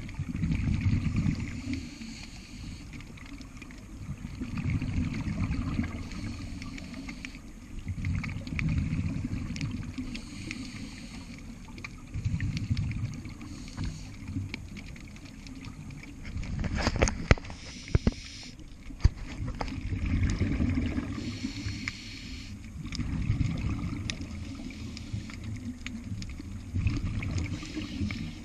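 Scuba regulator exhaust bubbles rumbling in bursts about every three to four seconds, one burst per breath, heard underwater through the camera housing. A few sharp clicks come a little past the middle.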